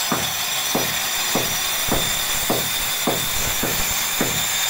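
Corded electric angle grinder cutting a groove into a brick wall: a steady high-pitched whine, with a dull knock about every half second.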